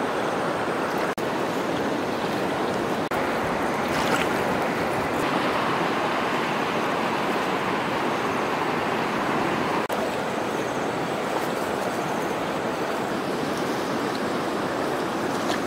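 Shallow muddy stream flowing, a steady rushing of water.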